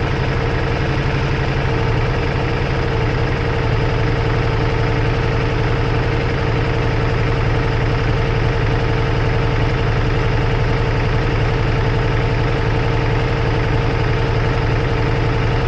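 Ducati Multistrada V4S's V4 engine running at a steady, unchanging pitch, heard loud and close through a camera clamped to the motorcycle.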